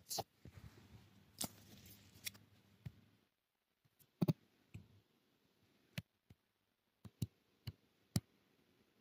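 Faint, irregular clicks, about a dozen, the loudest pair about four seconds in, over low room noise that cuts off a little after three seconds.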